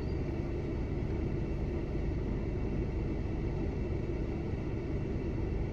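Steady low rumble of a car heard from inside the cabin, with no distinct events.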